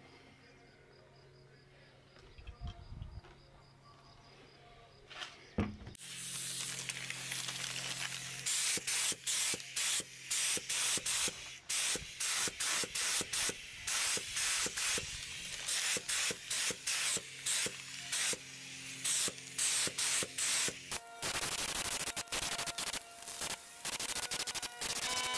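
Gravity-feed paint spray gun spraying a motorcycle wheel: a loud air hiss starts about six seconds in, then cuts in and out in many short trigger bursts. Before it starts there are only a couple of soft knocks.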